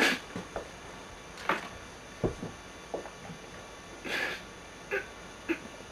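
A few short, scattered puffs of breath and sniffs from a person, with one soft low thump about two seconds in.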